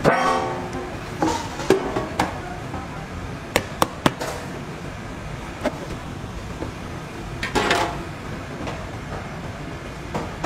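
Handling noises as dry pellets are tipped from a metal tray into a plastic tub and mixed by gloved hands. The tray scrapes and rings at the start, sharp knocks and clicks are scattered through the first half, and the pellets rustle in a burst near the end.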